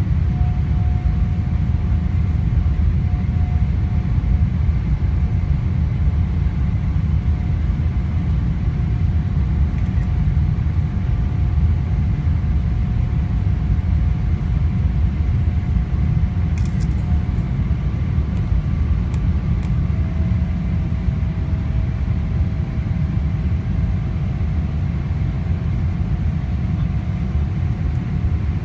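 Boeing 777-300ER cabin noise in the climb after takeoff: a steady low rumble of engines and rushing air heard inside the cabin. Faint steady whining tones sit above it.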